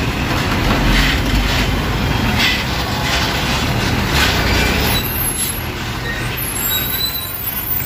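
A heavy vehicle passing close by: a loud low rumble under a wash of rolling noise, easing somewhat about five seconds in.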